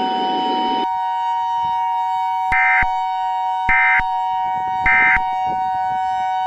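Steady two-tone Emergency Alert System alert tone. Three short bursts of digital end-of-message data chirp over it about a second apart, marking the end of the alert message.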